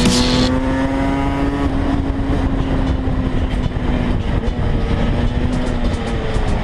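125cc two-stroke supermoto engine running hard at high revs, its pitch held nearly steady and easing down a little about four seconds in.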